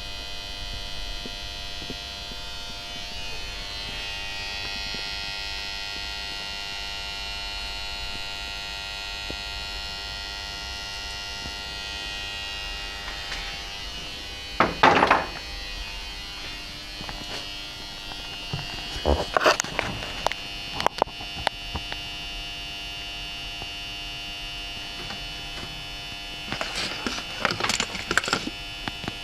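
A steady electrical hum with a high whine. Short clattering knocks break in about halfway through, again a few seconds later, and near the end.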